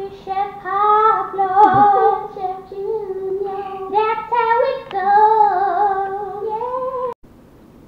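A high voice singing in long held notes, breaking off abruptly about seven seconds in.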